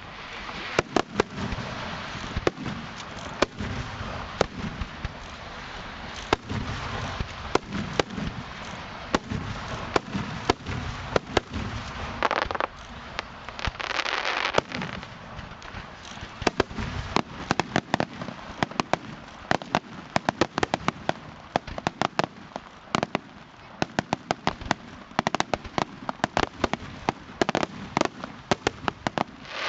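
Aerial fireworks display at close range: many sharp bangs of shells bursting in quick succession, overlapping at times. About halfway through there is a stretch of dense crackling hiss, and the bangs come thickest in the second half.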